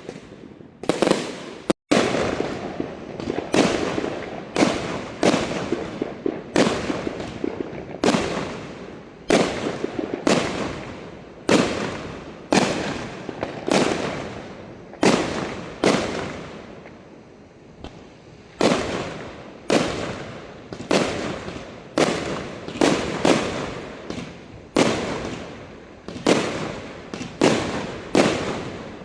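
Aerial fireworks display: a rapid series of shell bursts, about one to two bangs a second, each trailing off in a rolling echo, with a short lull a little past halfway before the bursts pick up again.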